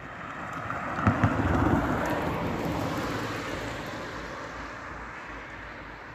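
A road vehicle passing close by: its noise builds to a peak a second or so in, with two quick thumps, then slowly fades away.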